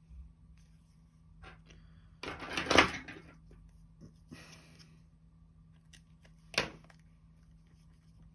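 Small handling noises of tools and phone parts on a repair bench: light ticks, a brief rustling scrape a little over two seconds in, and one sharp click about six and a half seconds in.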